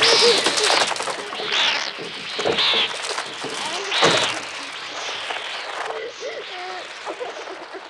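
A mass of crows shrieking and cawing in harsh repeated bursts, the film's electronically made bird cries, mixed with children's screams. The din is loudest in the first half and thins out toward the end.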